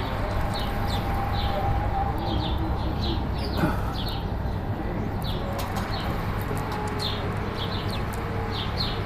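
Sparrows chirping: a run of short, high chirps, often two or three close together, over a steady low background rumble.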